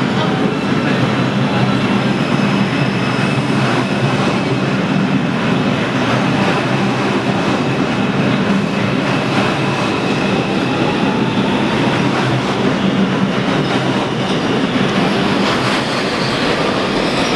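An R62A subway car heard from inside while running at speed on an elevated track: steady wheel and rail noise under a low motor hum, with some clickety-clack over the rail joints.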